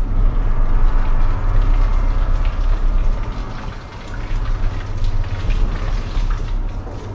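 Rain pattering on wet paving, a dense hiss with scattered small drop ticks over a deep steady rumble, growing quieter about halfway through.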